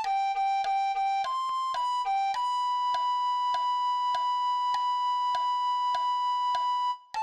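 Recorder melody of short notes G, G, G, G, C, B, G, then a high B held for about four and a half seconds, with a steady ticking beat of about two clicks a second underneath.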